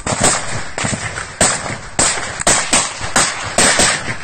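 Rifle gunfire: an irregular string of single shots, about ten in four seconds.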